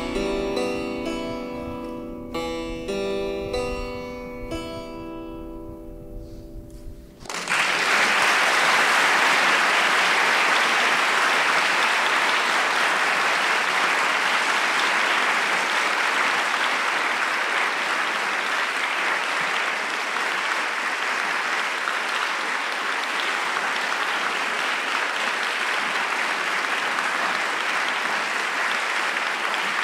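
The last chords of a piece on a plucked keyboard instrument ring and die away, then about seven seconds in the audience breaks into applause that carries on steadily to the end.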